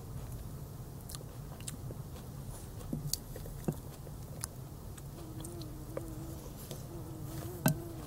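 Chewing and lip smacking with the mouth open: a scattering of sharp wet clicks, the loudest near the end. A buzzing insect's thin, wavering hum comes in during the second half, over a steady low hum.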